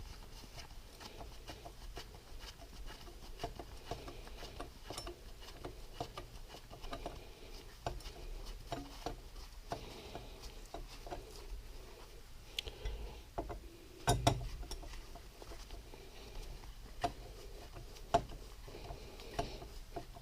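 Scattered light clicks and taps of hand-tool work on an engine case: a T-handle wrench starting and running in a small retainer bolt. A louder knock of metal comes about fourteen seconds in.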